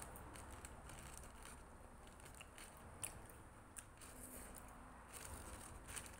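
Faint chewing and biting of a sandwich, with a few small sharp clicks scattered through it.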